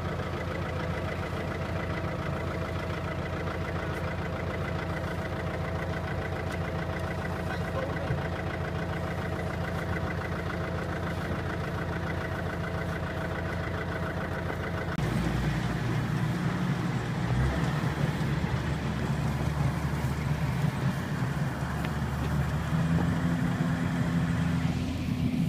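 An engine idling steadily with a fast, even pulse. About halfway through, the sound changes abruptly to a louder, lower engine note.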